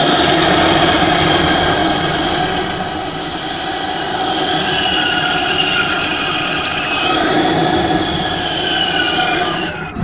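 Monster or alien sound effect: a continuous sound of several high, shrill tones over a rough noisy layer, lasting about ten seconds and stopping abruptly.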